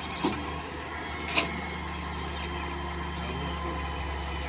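Engine running steadily with a low hum, with a sharp click about one and a half seconds in and a smaller one near the start.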